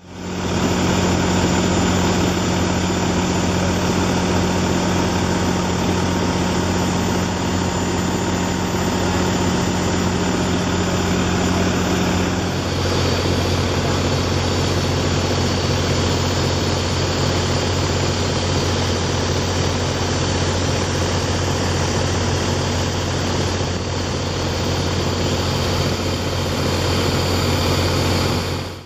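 Heavy vehicle engine idling with a steady low hum. Its tone shifts a little before halfway through.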